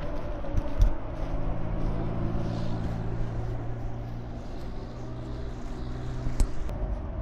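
A vehicle engine running at a steady pitch, with a few light clicks.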